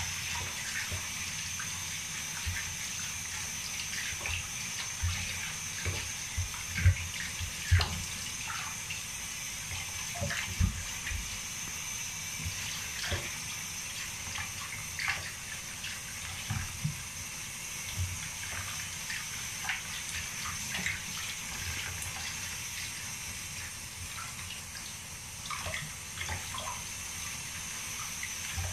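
Water splashing and sloshing in a plastic basin as hands scoop it over a wet chihuahua and rub its coat: irregular splashes over a steady hiss, loudest about seven to eight seconds in.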